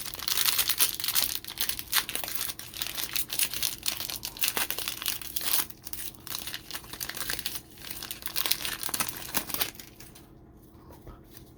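Plastic wrapper of a football trading card pack being torn open and crinkled by hand, a dense crackling that dies down about ten seconds in.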